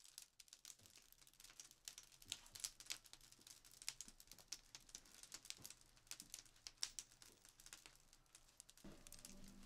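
Wood fire crackling in a wood-fired bread oven as it heats up: faint, irregular snaps and pops, with music coming in near the end.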